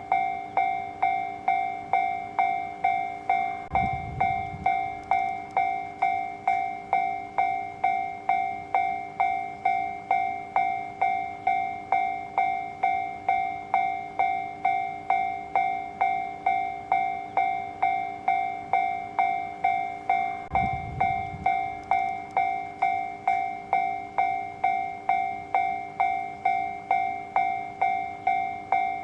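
Japanese railway level-crossing warning alarm ringing, a bell-like tone struck steadily about twice a second. Two brief low rumbles come in under it.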